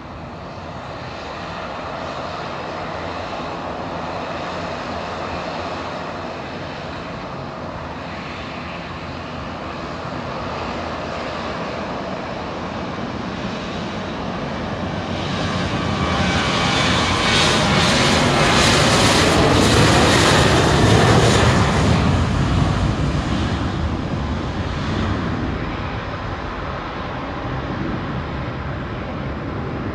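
Boeing 737-800 jet engines running at takeoff thrust as the airliner rolls down the runway and climbs away. The roar swells to its loudest a little past halfway as the plane goes by, with a downward sweep in pitch, then fades.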